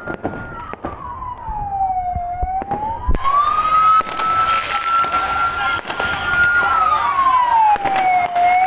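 Ambulance siren in a slow wail, holding high, sliding down and back up about every six seconds, over the noise of a crowd with a few sharp cracks in the first few seconds.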